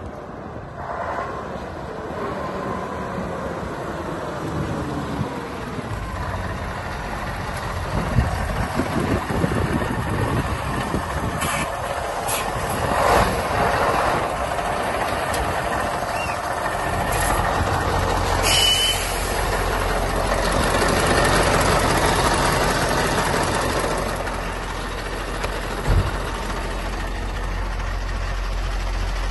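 Truck engine sounds: early on an engine sound falling in pitch, then from about halfway through a steady low engine rumble, with a few short knocks and clicks along the way.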